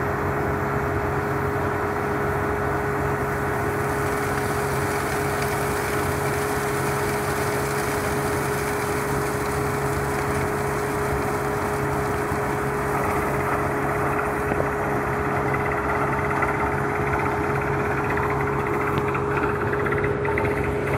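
Truck-mounted water bore drilling rig running steadily: an engine drone with a constant whine. Water and spray blasting out of the rig's discharge pipe add a rushing hiss after the rig has struck water.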